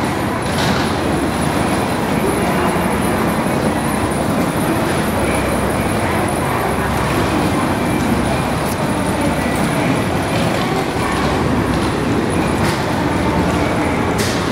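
Busy railway station ambience: a steady wash of indistinct crowd voices and movement mixed with train and platform noise, with a few faint clicks.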